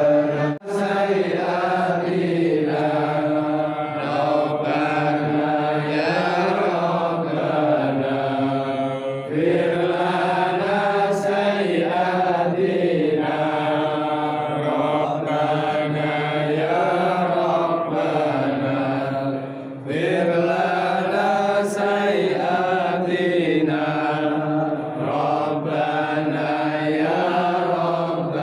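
Slow, drawn-out Islamic devotional chanting by a low voice, long held notes that bend gently in pitch, with short pauses for breath about nine and twenty seconds in.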